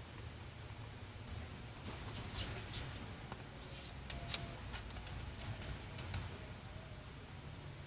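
Faint rustling and a few light clicks as a pleated window shade and its cord are handled and reassembled, over a low steady hum.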